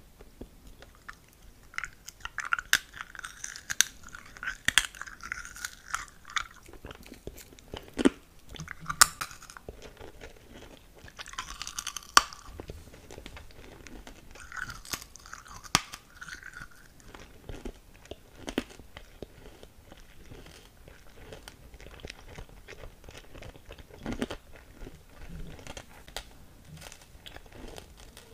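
A hard candy cane crunched and chewed in the mouth close to the microphone: sharp cracking crunches, loudest and thickest in the first half, giving way to softer chewing with scattered crunches.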